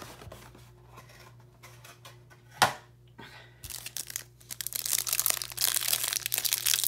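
Plastic wrapping on a trading-card hanger box being torn and crinkled open by hand. A single sharp click comes about two and a half seconds in, then steady crinkling and tearing from about four seconds on.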